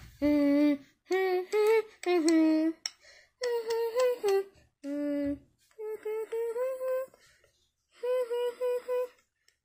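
A high voice humming a wordless tune in short held notes, with brief pauses between phrases.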